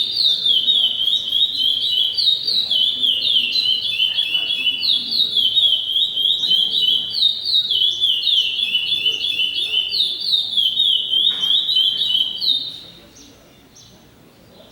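A songbird singing one long unbroken song of quick, repeated down-slurred notes, which stops abruptly near the end.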